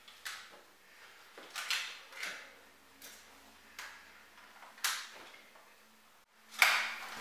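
A mobile phone being handled: a few soft knocks and clicks as it is lifted off a glass table and its keys are pressed, at uneven intervals, with a louder knock near the end as it is raised to the ear.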